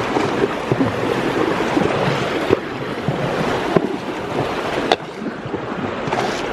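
Horses wading through a river: a steady rush and splash of water, with a few sharp knocks.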